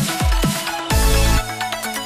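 Electronic dance music with a heavy beat: deep bass notes that slide downward in pitch, about one every half second, over drum hits.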